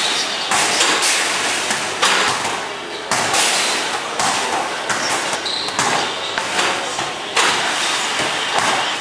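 Basketballs thrown at an arcade basketball shooting machine, thudding against the backboard and rim again and again, about once a second, over a steady loud din.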